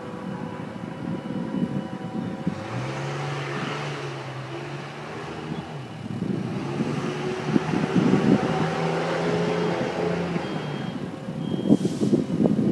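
An unseen engine running nearby: a low hum that comes in about three seconds in, shifts slightly in pitch and fades and returns, over faint steady whines, with rough buffeting near the end.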